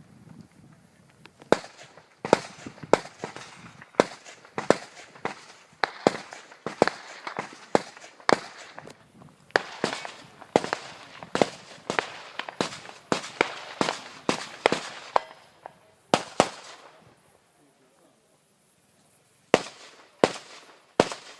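Rifle shots fired in quick, irregular strings, each crack followed by a short echo, with a pause of about three seconds near the end before firing resumes.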